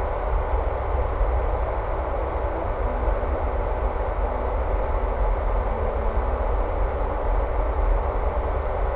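Steady rumbling noise with no distinct tones, strongest in the low end and wavering in level.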